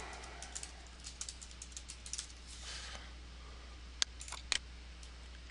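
Computer keyboard keys clicking in a quick run as two words are typed. About four seconds in come three sharper clicks as a mouse button is pressed. A steady low hum runs underneath.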